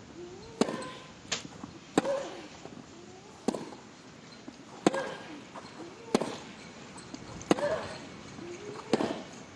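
Tennis rally: the ball is struck back and forth by racket strings, a sharp pop about every one and a half seconds, each hit followed by a player's short grunt.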